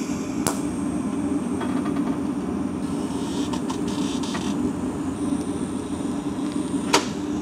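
TIG welding on steel: a steady hum and hiss from the welding arc, with a sharp click about half a second in and another near the end.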